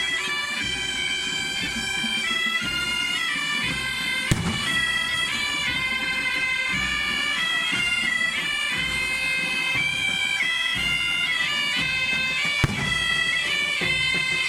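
Asturian bagpipe (gaita) playing a melody that moves in quick steps over a steady drone, with two sharp knocks, about four seconds in and near the end.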